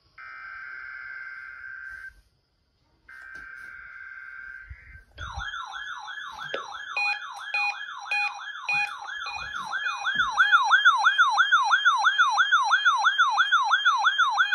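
Emergency Alert System data bursts: two harsh, buzzy SAME header bursts of about two seconds each, a second apart. Then, in place of the usual attention tone, a loud electronic yelping siren tone sweeps about three times a second and grows louder partway through, heralding the test message.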